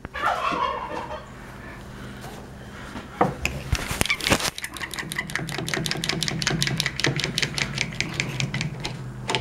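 A few wooden knocks, then a power drill runs for about four seconds with a steady hum and a rapid, even clicking, driving a screw into pallet wood without a pilot hole.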